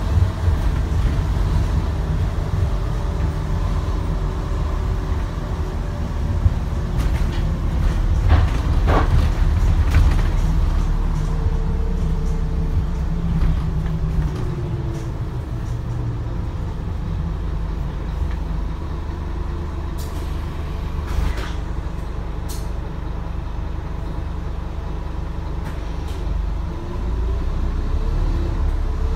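Scania N230UD double-decker bus heard from inside while under way: the diesel engine and driveline run steadily, with a whine that rises and falls as the bus speeds up and slows. A few brief hisses and knocks come through, about 8–9 seconds in and again around 20–22 seconds.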